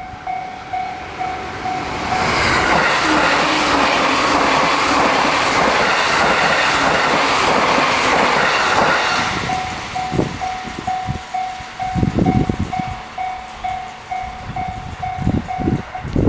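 Japanese railway level-crossing alarm ringing in rapid, evenly repeating two-pitch dings. A train passes for about seven seconds with a loud rush and wheel clatter that drowns out the bell. The bell is heard again once the train has passed and stops near the end, with a few low thumps in the last seconds.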